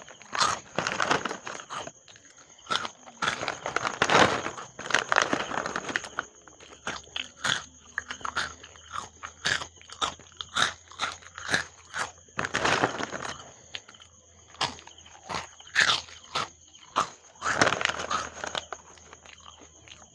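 Close-up crunching and chewing of Oishi prawn crackers: a string of short, sharp crunchy bites with chewing in between, and a few longer crackly stretches.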